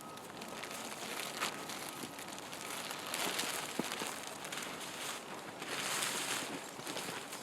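Snugpak Scorpion 2 tent fabric rustling and crinkling as it is handled and spread out, swelling twice, with a few light clicks.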